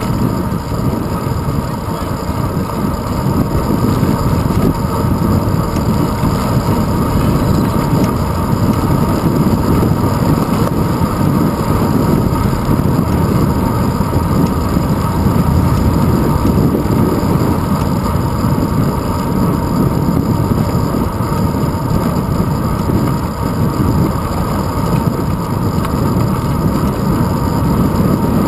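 Wind rushing over the microphone of a handlebar-mounted camera on a moving road bike, with tyre and road noise: a steady low rumble that swells slightly after the first few seconds.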